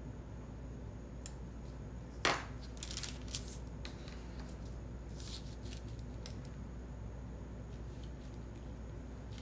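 Small handling sounds of paper and stickers on a desk: a click, a sharper tap a little over two seconds in, then a few light paper rustles, over a steady low hum.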